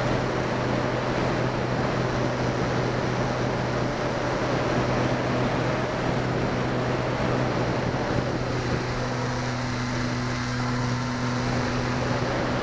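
Steady rush of airflow over a keychain camera riding on a model ASW 15 glider in flight, with a low steady hum underneath.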